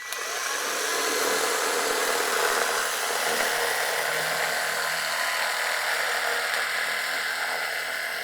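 Haushof cordless electric carving knife running steadily, its motor-driven blades sawing through a roll of insulating foam. It runs now that its loose power button has been fixed.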